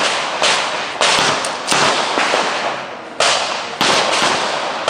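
A string of about six pistol shots from an IPSC practical-shooting stage, fired at an uneven pace with a pause of over a second in the middle. Each shot is followed by a long echo.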